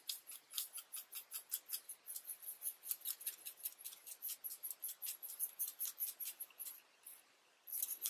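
A paintbrush stirring acrylic paint thinned with isopropyl alcohol in a small metal cup: quick, light scrapes and ticks of the brush against the metal, about five a second, with a short pause near the end.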